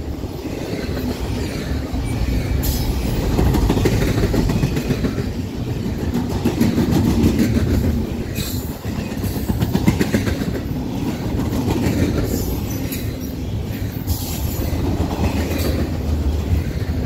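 Double-stack intermodal container train rolling past at speed: a steady rumble of steel wheels on rail, broken by scattered clicks as the wheels cross rail joints.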